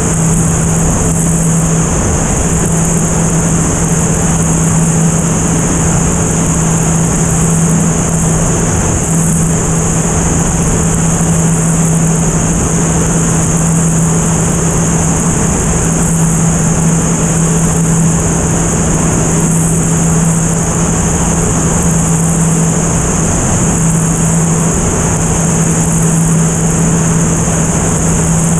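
Single-engine propeller aircraft in cruise: a steady engine and propeller drone with one low hum, mixed with wind rushing over an outside-mounted microphone.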